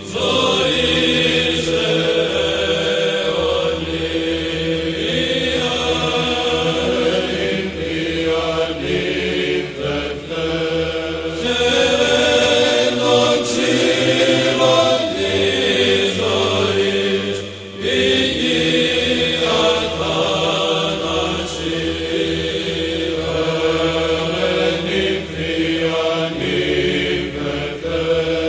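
Byzantine-style Orthodox chant as a soundtrack: voices singing a slow melody over a steady held drone note.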